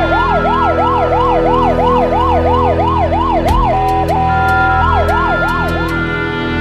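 Ambulance siren in a fast yelp, rising and falling about three times a second. It breaks into a short steady tone about four seconds in, then yelps again and trails off near the end.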